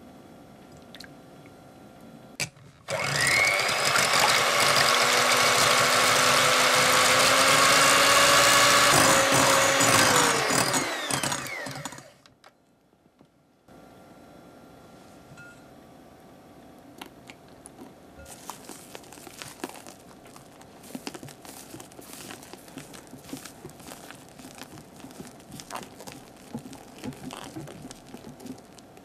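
Electric hand mixer whipping egg whites, running steadily for about nine seconds, then slowing with a falling pitch and stopping. Faint scattered light crackling and ticking follow.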